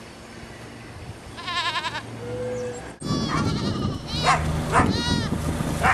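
Goats bleating. There is one wavering bleat, and after a sudden break about halfway through, a louder run of several overlapping bleats.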